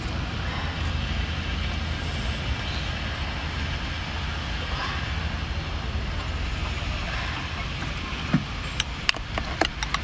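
Steady low background rumble, with a metal spoon clinking several times against a glass bowl of chili dipping sauce as it is stirred near the end.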